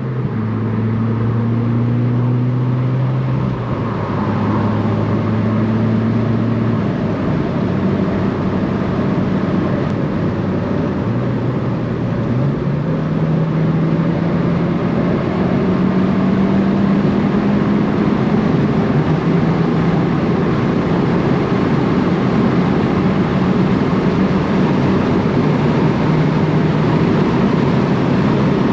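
2020 Subaru WRX's turbocharged FA20 flat-four running through a Greddy RS Race cat-back exhaust, pulling at about half throttle. The deep engine note holds, then drops and climbs again a few times as the car moves through the gears.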